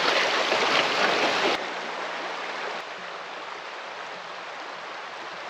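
River water rushing over a shallow riffle, loud at first and dropping to a quieter, steady wash of flowing water about a second and a half in.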